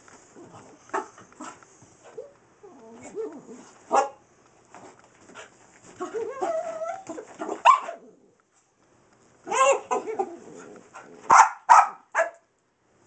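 Small Boston terrier mix dog barking in excited play while chasing a laser pointer dot, with wavering, drawn-out yowls in between and a quick run of three sharp barks near the end.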